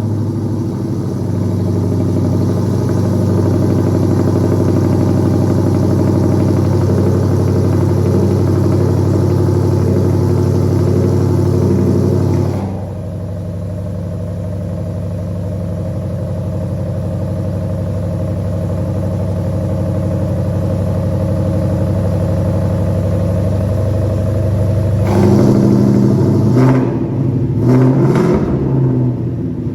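Ford Mustang Roush Stage 3's supercharged V8 idling through an aftermarket bypass exhaust with the mid muffler deleted. About a third of the way in it suddenly turns quieter and duller, then steadies. Near the end it is revved in several quick blips.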